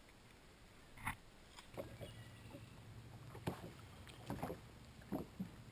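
Water knocking and splashing against a boat's hull in a few short, sharp hits, over a low steady hum that comes in about two seconds in.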